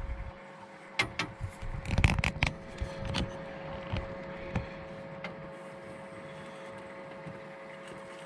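Knocks, clicks and scrapes of fishing gear and a landing net being handled on a boat, in an irregular cluster that is loudest about two seconds in and thins out by about five seconds, over a steady hum.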